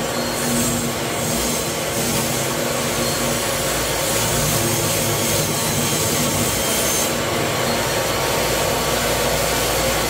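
Table saw running and ripping a wooden board lengthwise: a steady motor hum under the noise of the blade cutting through the wood.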